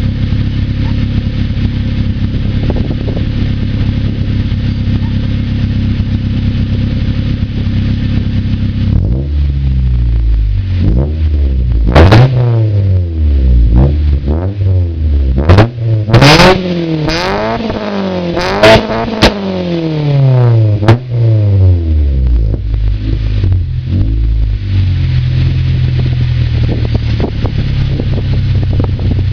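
Honda Civic EK3's four-cylinder engine running through a new exhaust system: idling steadily, then revved repeatedly, each rev rising and falling in pitch, from about a third of the way in until it settles back to idle for the last several seconds.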